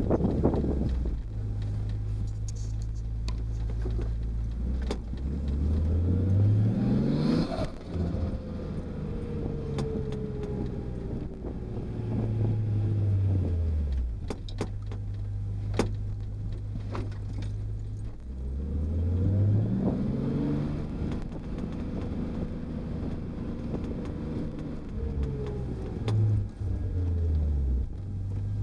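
Nissan RB25DET turbocharged 2.5-litre straight-six, heard from inside the 180SX's cabin while driving. The revs rise under acceleration a quarter of the way in and again past the middle, hold steady at cruising revs in between, and fall away between the two pulls. There is a short break in the sound near the end, like a gear change, before the revs climb again.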